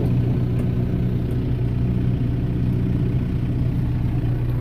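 Kubota M6040 tractor's diesel engine idling steadily.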